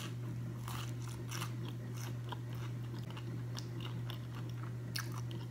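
Close-miked biting and chewing of a panko-breaded deep-fried avocado slice: a bite, then irregular crisp crunches of the fried coating as it is chewed. A steady low hum runs underneath.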